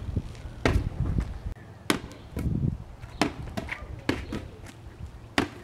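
Large inflatable ball bouncing on a concrete driveway and being slapped back and forth by hands: a string of sharp smacks, roughly one or two a second.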